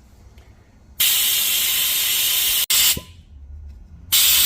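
Trigger-operated, air-powered valve vacuum tester hissing loudly as it pulls vacuum on a Subaru cylinder head port, to check that the valves are sealing. The hiss starts about a second in and cuts off suddenly after under two seconds, followed by a brief puff. It starts again near the end.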